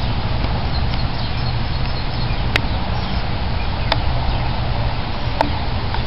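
Steady low outdoor rumble with faint, scattered bird chirps, cut by three sharp clicks about a second and a half apart.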